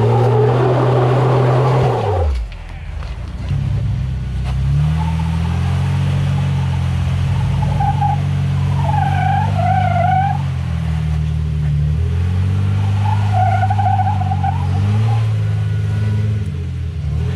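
Off-road Jeep engine working at crawling speed, its revs rising and falling, with a brief drop about two seconds in. Short squealing sounds come twice over the engine.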